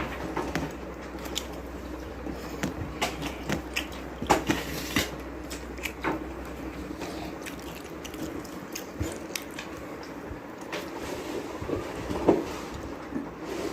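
A person eating: chewing, with scattered small clicks and taps of food and plate.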